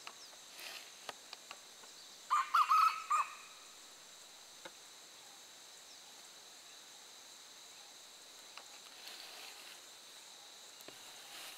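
A red junglefowl rooster crows once about two seconds in: a short, clipped crow of several quick notes lasting about a second.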